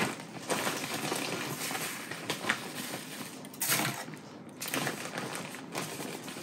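Kitchen handling noises: soft, irregular rustling with a few light taps as hands work with food and a baking dish.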